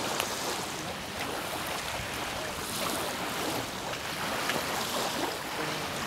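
Small lake waves lapping on a sandy shore, with wind: a steady wash of noise, with a few faint sharp ticks.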